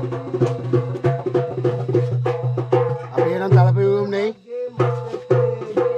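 Background music with a steady percussive beat over a sustained bass line.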